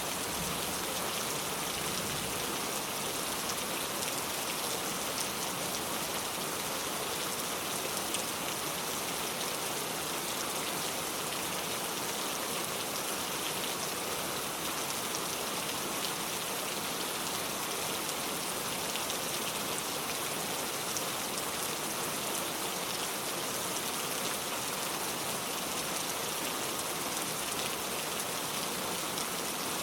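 Steady heavy rain falling and pattering on surfaces, an even hiss with scattered small drop ticks.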